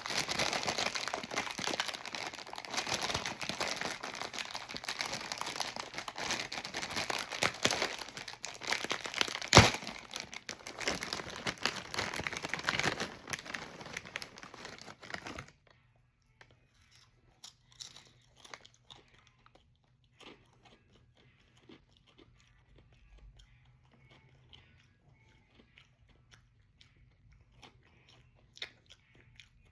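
Plastic cracker bag crinkling and rustling as it is handled and torn open, with one sharp pop about ten seconds in. The crinkling stops suddenly about halfway through, leaving faint crunching of crackers being chewed.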